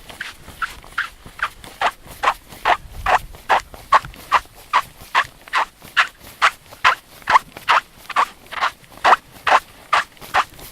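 Squeaking sand on the Curonian Spit beach squeaking underfoot. The foot scuffs or steps on it in a steady rhythm, giving short squeaks about two and a half times a second.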